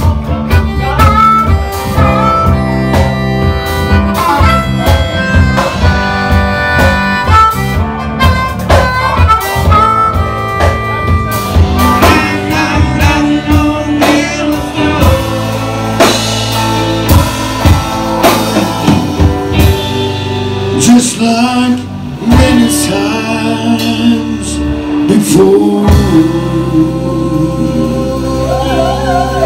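Blues band playing: harmonica over electric guitar and drum kit, with a male voice singing.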